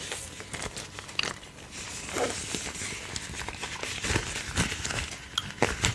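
Close-miked chewing gum being chewed, with irregular wet mouth clicks and small crackles.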